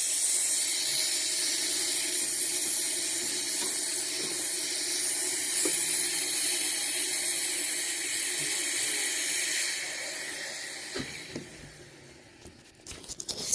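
Vacuum cleaner pulling air through a length of plastic hose pushed into its nozzle: a steady, high hiss of rushing air. About ten seconds in it dies away over a couple of seconds, and a few light clicks follow near the end.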